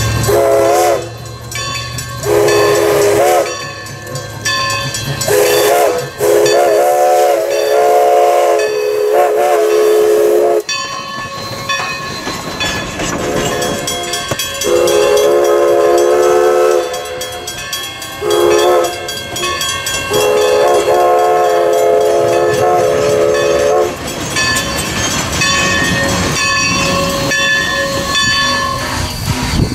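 Steam whistle of Everett Railroad's Alco locomotive No. 11 sounding a series of long and short chime blasts as the engine reaches a road crossing, the grade-crossing whistle signal. Between and under the blasts the locomotive hisses and rumbles as it passes close by.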